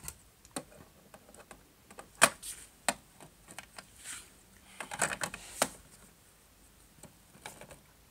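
Plastic Playmobil figures and pieces being handled, tapping and clicking against a plastic toy house: scattered sharp clicks, with a quick cluster of them about five seconds in.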